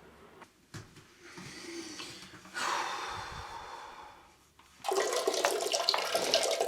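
Bathroom water sounds: a click, then a stream of water splashing into a toilet bowl for a few seconds that fades out, and after a brief gap a louder rush of running water.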